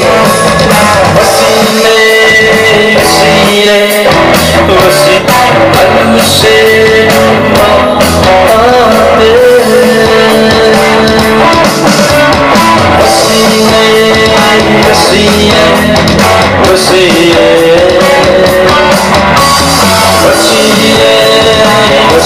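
Loud music throughout: a song with a singing voice, guitar and drums.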